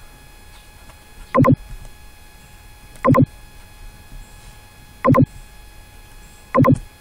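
Four loud, short, distorted clicks, one every second and a half to two seconds, over a faint steady electrical hum: computer mouse clicks picked up close by the recording microphone while the screen recording is being stopped.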